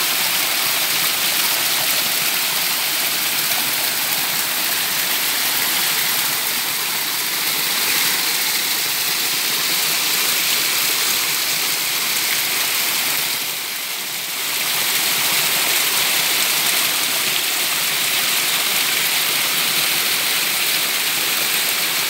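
Small waterfall splashing steadily down a face of layered rock, heard close by as an even rush of falling water. It goes briefly softer a little past halfway, then comes back.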